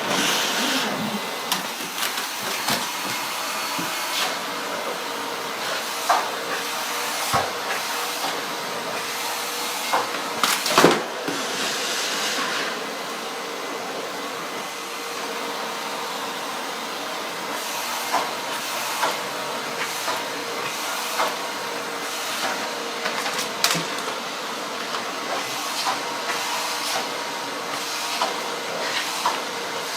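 Vacuum cleaner running steadily, with frequent brief knocks and clicks; the loudest knock comes about eleven seconds in.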